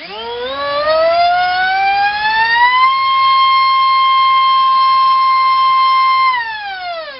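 Multistar Viking 2208 2600kV brushless drone motor spinning a 4.5x4.5 sport prop on a 4-cell battery: a loud whine that rises in pitch as it is throttled up over about three seconds, holds steady, then falls as the motor spools down near the end.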